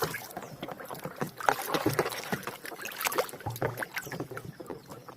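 Water splashing and sloshing in irregular bursts, with small knocks, as a muddy plastic toy gun is washed by hand.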